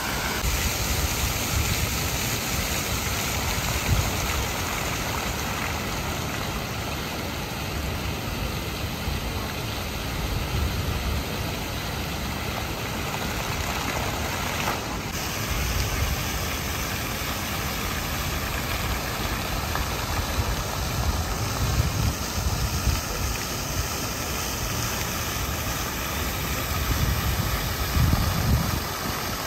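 Water jets of a lakeside musical fountain rushing and splashing in a steady hiss, with a low rumble that swells and fades now and then.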